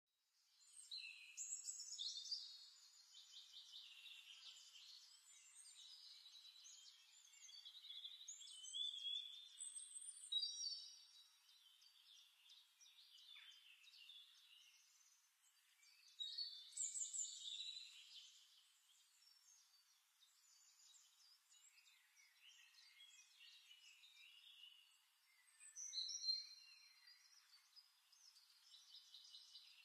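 Faint birdsong from several songbirds, chirping and warbling in short phrases that swell and fade, with louder bursts a couple of seconds in, around nine and seventeen seconds, and near the end.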